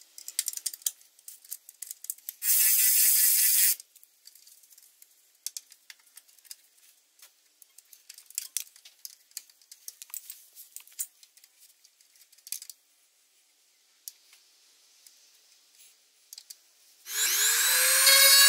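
Light clicks and taps of metal tubing and tools being handled under a car. A small electric power tool whirs for about a second, about two and a half seconds in, then starts again near the end and keeps running loudly with a steady whine.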